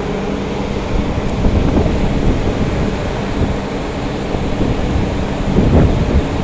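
A ship's engines and machinery running with a steady low drone, heard from on deck, with wind rumbling on the microphone.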